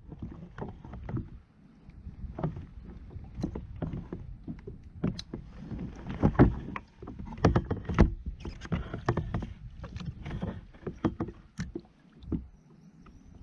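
Irregular knocks and taps of gear being handled on a fishing kayak, over a low rumble, with a couple of louder knocks about halfway through.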